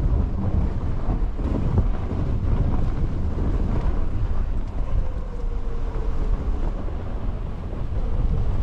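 Wind buffeting the microphone: a steady low rumble with a hiss above it, and a faint tone sliding slowly down around the middle.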